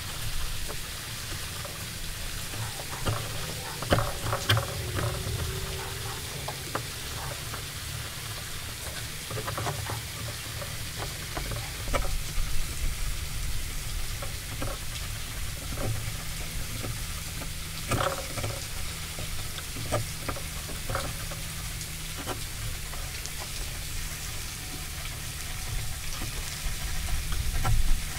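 Steel chisel paring the end grain of a wooden beam by hand, a scratchy scraping as thin shavings come off. Short sharp clicks and knocks come here and there over a steady low hum.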